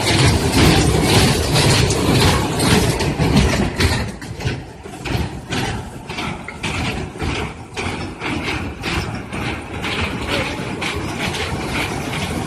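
Train running, with a fast, even beat of sharp clatters over a low rumble; it becomes quieter about four seconds in.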